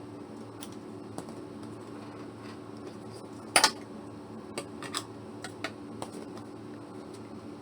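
A few sharp snips and clicks of scissors, most likely trimming threads off a twin-needle sewing sample, over a steady low hum. The loudest is a quick double snip about three and a half seconds in, followed by several lighter clicks.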